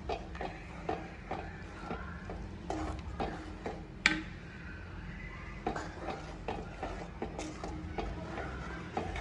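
Spoon stirring and scraping in a pot of fish curry, with irregular clinks against the pot and a sharper knock about four seconds in, over a low steady hum.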